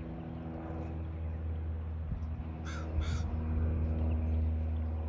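A crow cawing twice in quick succession about halfway through, over a steady low hum.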